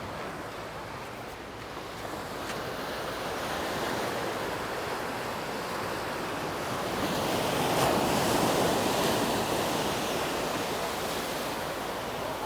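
Sea waves washing onto a beach, with a swell of surf that is loudest about eight seconds in.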